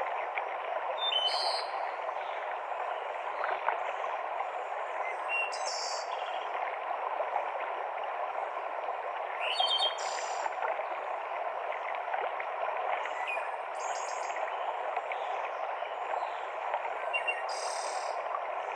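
Steady rush of a mountain stream cascading over rocks, with a bird giving short, high calls about every four seconds, five times in all.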